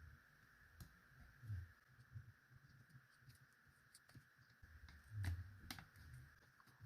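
Faint, scattered clicks and soft bumps of small plastic speaker parts being handled during disassembly, with the loudest bump about five seconds in, over a faint steady high hum.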